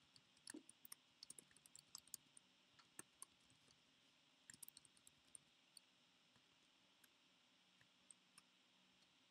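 Faint computer keyboard typing: quick runs of light key clicks for about the first five seconds, then only a few isolated keystrokes.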